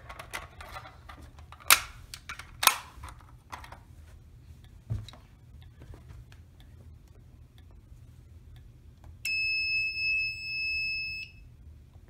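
Notifier fire alarm pull station being reset by hand: a few sharp clicks and snaps, the loudest about two seconds in and another a second later. About nine seconds in, the Fire-Lite MS-4 control panel's piezo sounder gives one steady high beep lasting about two seconds.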